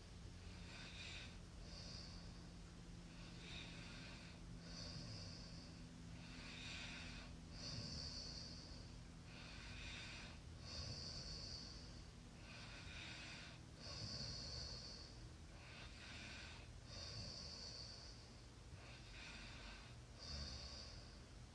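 Faint snoring of a sleeping person: slow, regular breaths about every three seconds, each cycle with a high hissing breath followed by a broader, lower one.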